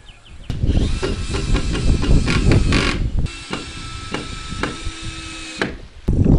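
Carpentry on wooden formwork boards: a run of sharp wooden knocks and clatters, then a steady power-tool whine for about two seconds with a few more knocks.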